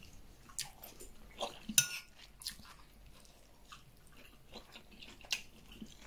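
A person chewing food, with a few light clicks of a metal spoon on a plate and one sharper ringing clink about two seconds in.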